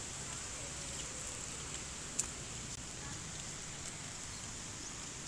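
Quiet outdoor background: a steady high hiss with a few faint short chirps near the start and one sharp click about two seconds in.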